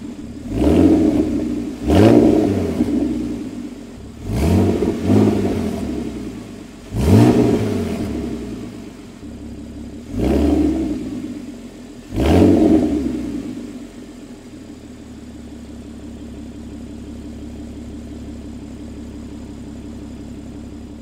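Porsche Cayman 987.2 flat-six through a Soul Performance exhaust, blipped about seven times. Each blip revs up sharply and falls back, and the engine then settles into a steady idle for the last third.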